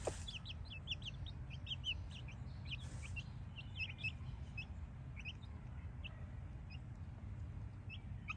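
Brahma chicks peeping while they feed: many short, high, rising peeps, thick at first and thinning out after a few seconds, over a low steady rumble.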